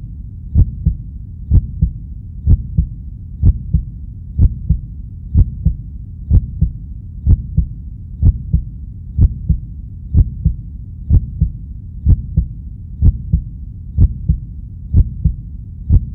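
Slow, steady heartbeat sound effect: a low double beat about once a second, over a faint low hum.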